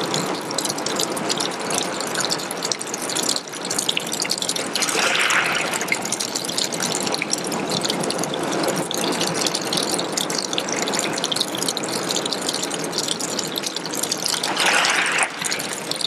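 A thin stream of water trickling down a rock face and splashing onto wet pebbles: a steady hiss with a dense crackle of small splashes. A louder rushing swell rises twice, about five seconds in and near the end.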